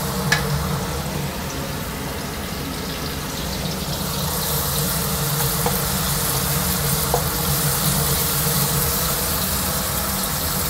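Sliced onions and ginger-garlic paste sizzling steadily in hot oil in a wok as they are sautéed, stirred with a wooden spatula.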